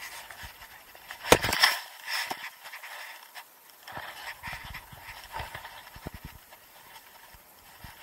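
Rustling, rubbing and irregular clicks of clothing and hands against a body-mounted camera while a fly line is worked in, with the loudest scrapes about a second in.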